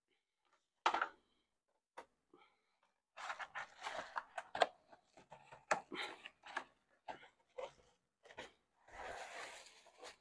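Packaging being handled as a ring light is unboxed: cardboard box lid lifted and the plastic-wrapped ring light drawn out, with crinkling plastic and rustling cardboard. There is a single sharp click about two seconds in, and a longer burst of plastic crinkling near the end.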